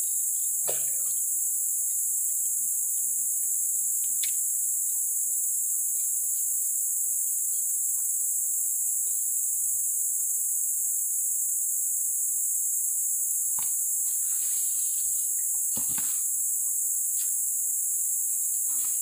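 Dense insect chorus: a loud, unbroken high-pitched drone, with a few faint rustles and knocks near the end.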